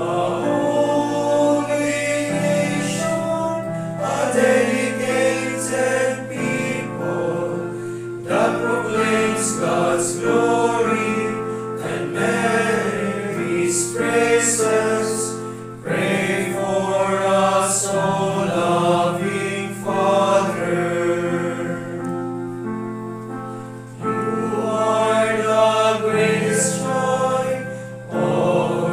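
A male choir of students singing a hymn together in long held phrases, with short breaths between phrases about every four seconds.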